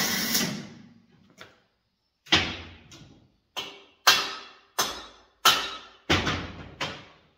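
A brief tack-welding burst on a stainless steel square tube, then about eight sharp knocks at uneven intervals, each dying away within about half a second.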